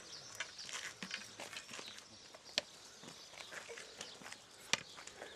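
Scattered footsteps and walking-stick taps of a hiking group on a paved street, with two sharper taps, one midway and one near the end.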